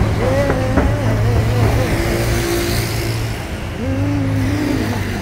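City street traffic, led by the steady low running of a city bus engine close by, with cars passing. Two short stretches of a wavering voice sound over it, about a second in and near the end.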